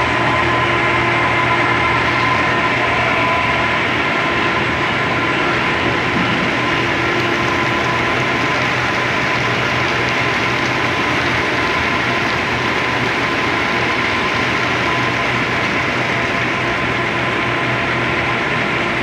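Biscuit production line machinery, cooling conveyors and a biscuit stacking machine, running steadily: a constant mechanical hum with a faint whine over a busy clatter.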